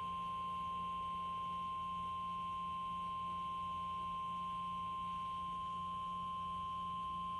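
NOAA Weather Radio warning alarm tone: a single steady high beep near 1 kHz, held unbroken. It signals that a National Weather Service warning is about to be read.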